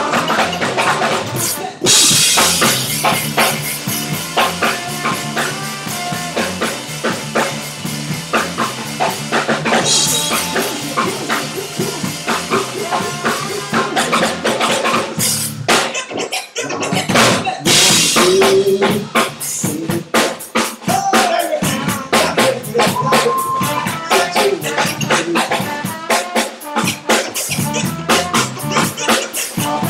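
Live band playing a funk groove, a drum kit keeping a busy beat under bass and other instruments, with a brief drop-out about sixteen seconds in.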